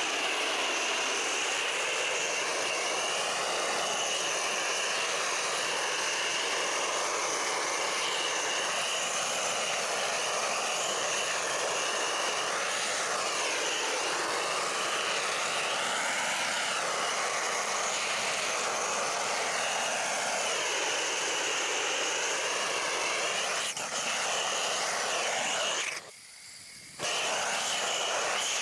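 Gas-canister blowtorch burning steadily as its flame singes the leftover down off a plucked drake. The hiss of the flame wavers as the torch is moved over the bird, and drops out for about a second near the end.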